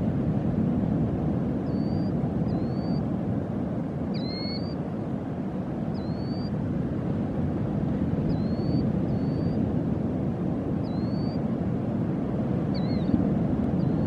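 Steady low rush of ocean surf, with a small bird's short high chirp, dipping then rising, repeated about nine times at uneven intervals, the loudest about four seconds in.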